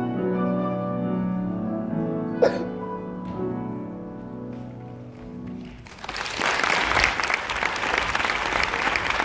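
Instrumental music with long sustained notes fading out, with one sharp knock partway through. About six seconds in, the theatre audience breaks into loud applause.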